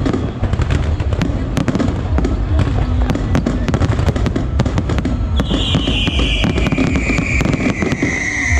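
Aerial fireworks display: a dense barrage of bangs and crackling shell bursts over a constant low rumble. From about five seconds in, a long whistle slides slowly down in pitch.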